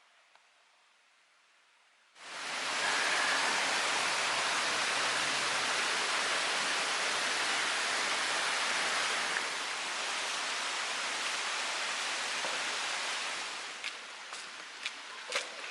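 Rushing water running steadily, cutting in suddenly about two seconds in. It is a little quieter near the end, with a few sharp clicks.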